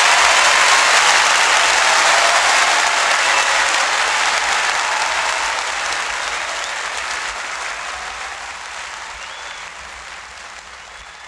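Theatre audience applauding, the applause fading out steadily.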